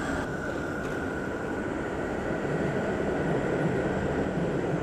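Steady city street noise: a continuous vehicle rumble with a faint, constant high whine over it.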